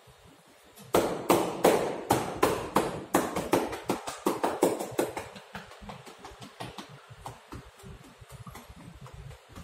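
Hand-percussion massage: a masseuse's hands rapidly tapping and slapping on a person's body in a steady rhythm. The taps start sharply about a second in, are loud at about three a second, and after a few seconds go on as quicker, lighter taps.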